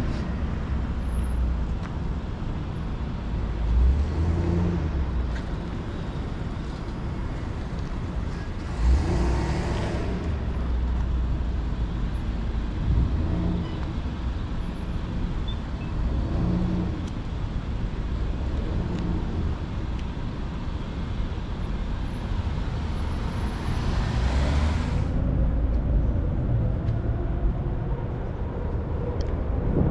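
City street traffic: cars and other road vehicles passing at a wide intersection, with a steady low rumble. Two louder vehicle passes stand out, one about nine seconds in and another around twenty-four seconds.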